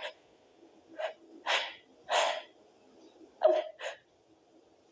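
A woman's stifled sneezes and sharp catching breaths: about five short, muffled bursts, the last two in quick succession.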